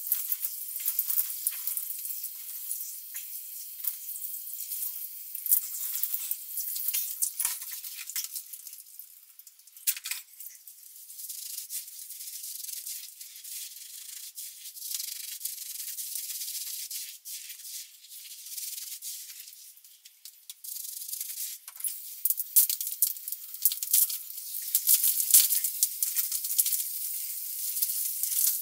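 Crackly rustling of hair being handled close to the microphone, a dense run of small dry ticks with two brief lulls.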